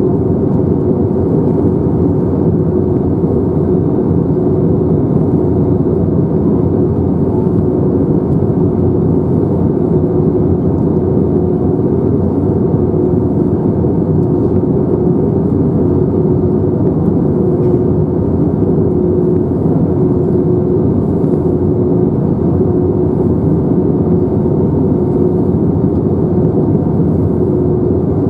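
Steady cabin noise inside an Airbus A321-231 in flight: the rush of airflow and the drone of its IAE V2500 turbofan engines, with a constant hum under it.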